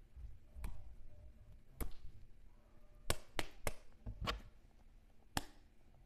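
Pieces of a rubbery toy burger fidget, its patty, lettuce and bun, being handled and stacked, giving about seven sharp taps and clicks, with a quick run of four near the middle.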